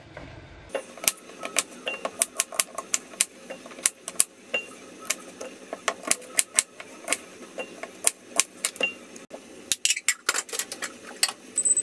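A knife chopping sweet potato on a plastic cutting board: a quick, irregular run of sharp knocks, about four a second. Near the end comes a short high electronic beep, the microwave being set.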